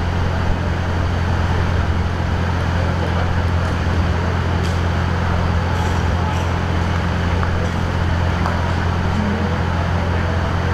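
Steady low hum of an idling engine over a constant street-noise hiss.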